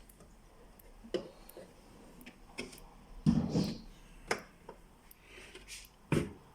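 Scattered light clicks and knocks of plastic parts being handled on a fridge's built-in water dispenser, a handful spread a second or so apart, the loudest a dull knock with a short rattle about three seconds in.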